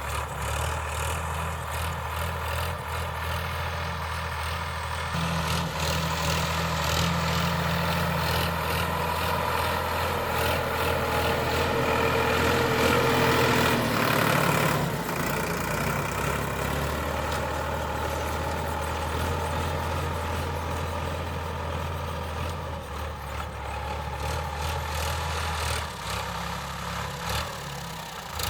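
Sonalika DI 745 III tractor's diesel engine running steadily while ploughing dry ground. The engine note rises about five seconds in and grows louder until about halfway, then drops suddenly and settles back to a steady run.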